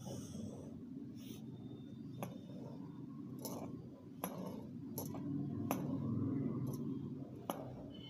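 Marker pen drawing lines on paper, with several sharp ticks as the tip taps down and a short scratch of a stroke at the start, over a steady low background noise.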